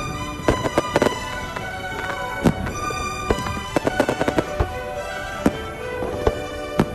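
Fireworks bursting in irregular sharp bangs, several a second, over steadily playing music.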